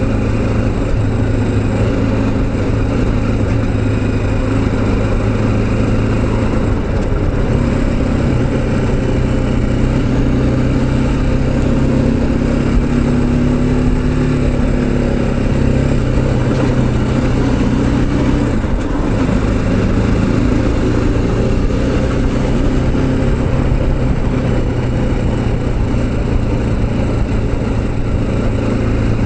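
BMW G310GS motorcycle's single-cylinder engine running steadily while riding in city traffic, with road noise over a steady low hum. The engine note shifts about two-thirds of the way through.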